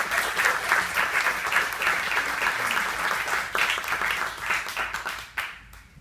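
Audience applauding, a dense patter of many hands clapping that dies away about five and a half seconds in, ending with a few last claps.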